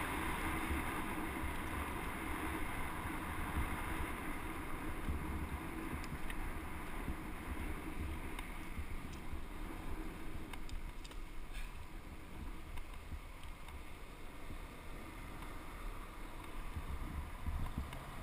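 Wind rushing over a helmet camera's microphone while a bicycle rolls along a paved path, with steady tyre rumble and a few faint ticks in the middle.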